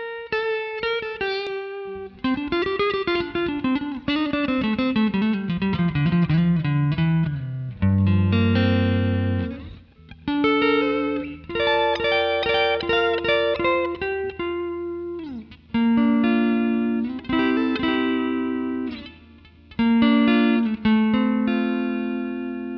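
Fender American Performer Stratocaster electric guitar played on a clean tone through a modelled Fender Twin Reverb amp, recorded direct. A quick run of picked single notes steps down in pitch, then held notes and chords ring out, with a downward slide about fifteen seconds in and a final chord left ringing and fading.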